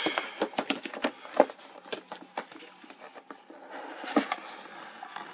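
Cardboard tablet box and packaging being opened by hand: irregular rustling, scraping and light clicks, with the sharpest snaps about one and a half seconds in and again about four seconds in.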